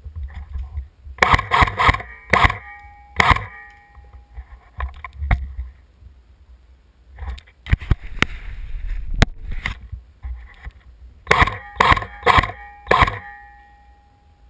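Airsoft rifle firing single shots in three quick groups, each a sharp crack about half a second after the last, with a short ringing tone after each shot.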